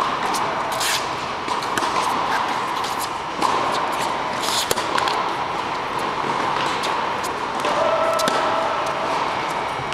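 Tennis rally on an indoor hard court: sharp pops of rackets striking the ball and the ball bouncing, at irregular intervals a second or more apart, over a steady background rush.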